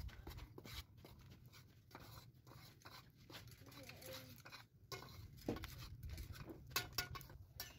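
A metal spoon stirring a pot on a wood-fired mud stove, making quiet, irregular clicks and scrapes against the pot, with faint voices in the background.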